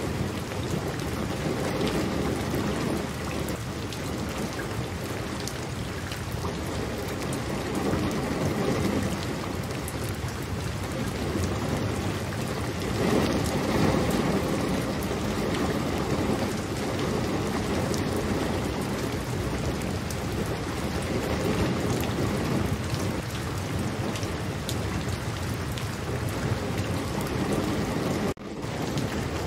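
Steady rain falling, with a low rumble of thunder swelling about 13 seconds in. The sound cuts out for a moment near the end.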